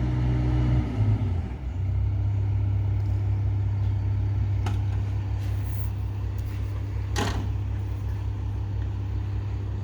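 Excavator's diesel engine running, dropping in pitch about a second and a half in and then idling steadily. Two short sharp knocks stand out over it partway through.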